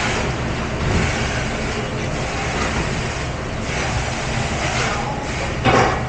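Commercial rack-conveyor dishwasher running with a steady rumble and spray noise, with a brief louder noise near the end.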